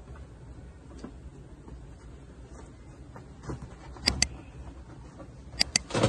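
Mouse-click sound effects from an on-screen like-and-subscribe animation: two quick double clicks, about four seconds in and again a second and a half later.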